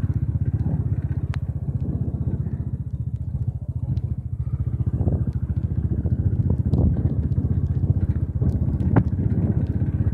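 Royal Enfield Bullet 500's single-cylinder four-stroke engine running steadily under way, a fast, even train of exhaust pulses, with occasional sharp clicks and rattles from riding over a rough gravel road.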